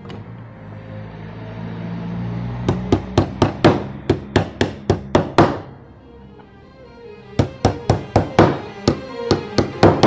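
Small hammer striking a wooden board in two runs of quick, sharp blows, about four a second: the first starts a few seconds in and lasts about three seconds, and the second begins about two seconds later and runs to the end. Background music plays under the strikes.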